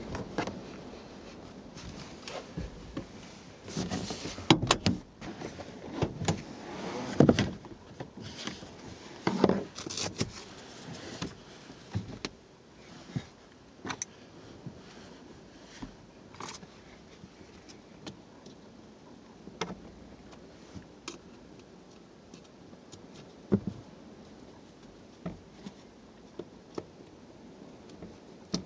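Rustling, knocks and clicks as a car's rear seat cushion is pushed and handled into place. The noises are busiest in the first dozen seconds, then thin out to occasional single clicks.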